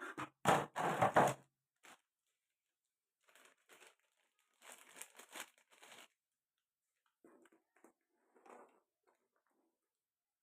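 Packaging being handled and torn open: a loud burst of tearing and crinkling in the first second and a half, then softer intermittent rustling.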